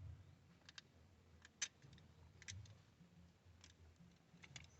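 Near silence with several faint, irregularly spaced clicks and ticks from wires being handled while a car stereo's remote wire is connected.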